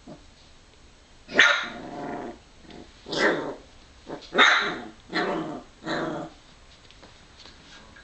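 Young puppy barking: five short barks about a second apart, starting about a second and a half in.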